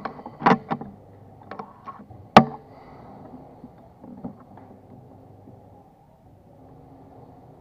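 Regulated PCP air rifle firing one shot, a single sharp crack about two and a half seconds in. Several lighter clicks and knocks of the rifle being handled come before it.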